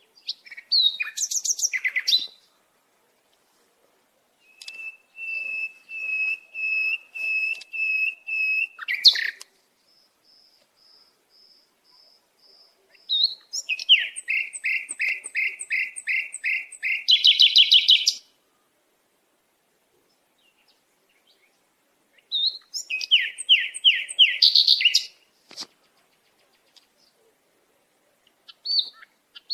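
Songbird singing in separate phrases: runs of repeated clear whistled notes and fast trills, with silent gaps between them.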